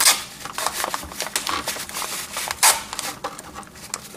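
Masking tape being pulled off its roll and pressed down along a plastic car grille: a run of short rips and rubs, the loudest right at the start and again about two and a half seconds in.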